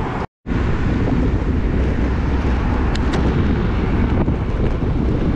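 Wind rushing over the microphone of a handlebar camera on a moving road bike, mixed with city traffic noise. It runs steady and loud, after a brief total break in the audio just after the start.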